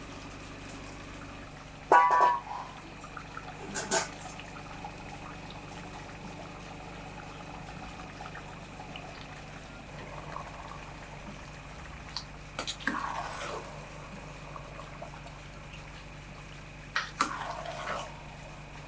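A metal spoon stirring chicken pieces into wet gravy in a cooking pot: short scrapes and clanks against the pot about two seconds in, near four seconds, around thirteen seconds and near the end, the first with a brief metallic ring, over a steady background hum.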